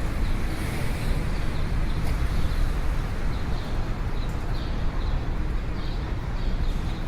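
City street ambience: a steady rumble of traffic, with short high chirps repeating every half second or so.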